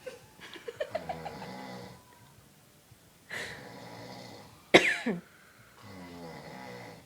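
A man snoring in slow, buzzing breaths, with one sudden, much louder snort about five seconds in.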